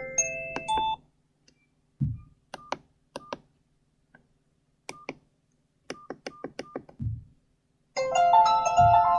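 Medion M5511 mobile phone: a melodic ringtone ends about a second in, followed by short keypad beeps in two quick groups with a couple of low thumps between them. Near the end a new chime-like ringtone starts playing through the phone's speaker.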